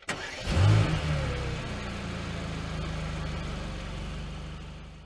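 A car engine revs about half a second in, then settles into a steady, evenly pulsing idle that fades away near the end.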